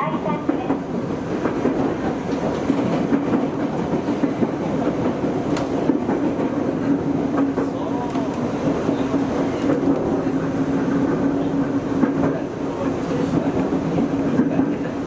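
Nagoya Municipal Subway 3000-series electric train running along the line, heard from inside the front of the car: a steady rumble of wheels on rail with a steady hum underneath.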